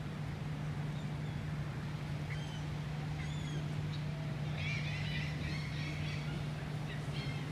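Gulls calling overhead: a few short cries, then a quick run of squawks about two-thirds of the way through, and one more near the end, over a steady low hum.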